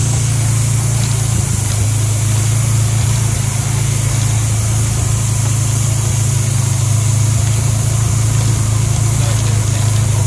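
ATV engine running steadily while the vehicle is under way: a loud, even low hum with a hiss over it.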